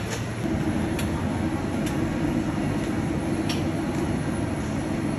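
Steady low rumble of a moving vehicle, with a few light clicks about a second apart.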